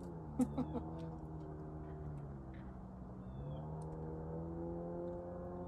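A motor vehicle's engine running steadily, its pitch shifting slowly and rising in the second half, with a few sharp clicks about half a second in.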